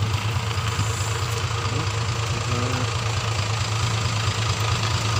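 A Fuso Fighter truck's diesel engine running steadily at low speed, a constant low drone.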